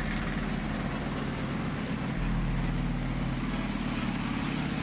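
Tank engine running steadily, a continuous low mechanical hum.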